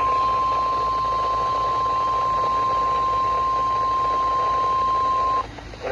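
NOAA Weather Radio 1050 Hz warning alarm tone, one steady high beep over light radio hiss that cuts off suddenly near the end. It signals that a severe thunderstorm warning message is about to be broadcast.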